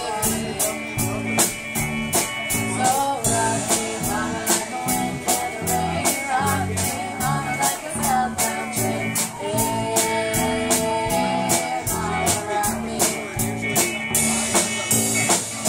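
Live rock band playing: electric guitars over a drum kit keeping a steady beat, with a woman singing.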